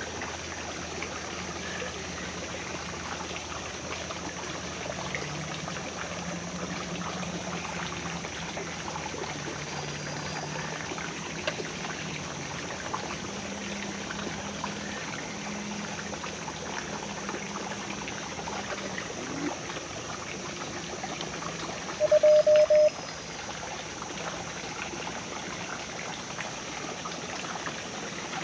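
A creek trickling steadily over rocks. About three-quarters of the way in, a short, loud run of beeps at one pitch sounds from the QRP Morse radio's sidetone through its small speaker.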